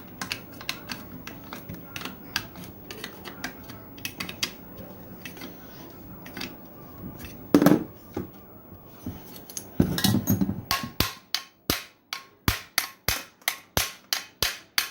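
Sharp metal taps on a washing machine spin-dryer motor's end cover, evenly repeated about two to three times a second through the second half, tapping it into place so the motor turns freely. Before them come scattered small metallic clicks of handling and one louder knock.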